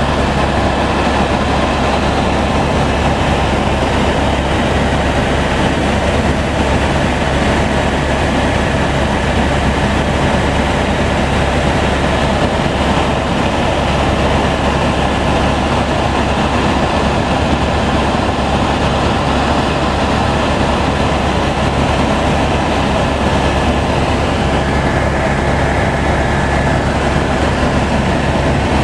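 Steady helicopter cabin noise in flight: the deep, even drone of the rotor and turbine heard from inside the cabin, with a faint high whine over it.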